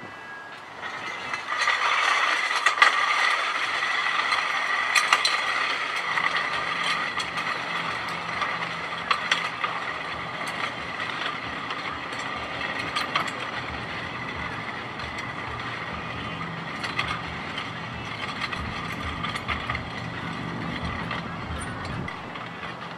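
A weight sled loaded with iron plates is dragged across rough asphalt, its metal base scraping and grinding with scattered sharp clicks. The scraping starts a second or two in and grows fainter as the sled is pulled away.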